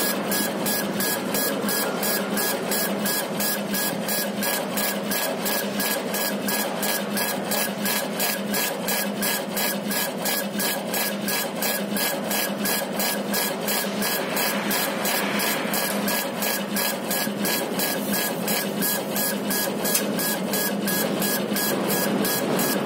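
Laser engraver's head rastering back and forth while engraving acrylic. Its motors give a regular pulse of about two to three strokes a second over a steady hiss and hum.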